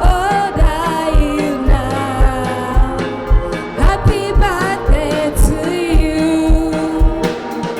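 A song with a sung melody over a steady kick-drum beat, just under two beats a second.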